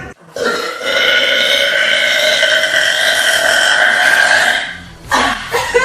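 A girl's long, drawn-out burp lasting about four seconds, holding a steady pitch before fading. A short bit of voice follows near the end.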